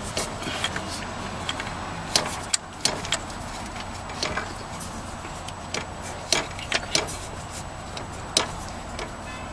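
Scattered metal clicks and knocks, a few of them sharper, as an old alternator is worked against its mounting bracket in a 2004 Toyota Corolla's engine bay. The alternator is stuck and not coming free.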